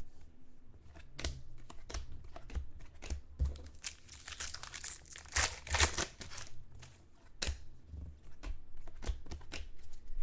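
Trading-card pack wrappers crinkling and cards clicking as they are handled, in irregular bursts that are busiest midway.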